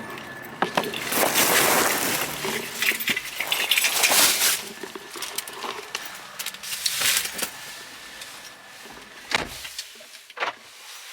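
Handling noise with keys jangling and rustling, loudest in two noisy stretches in the first half with scattered clicks, then a single sharp thump about nine seconds in.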